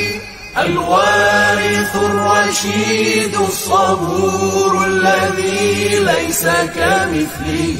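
Background devotional chant: a voice singing long, wavering held notes over a steady low hum, with no beat.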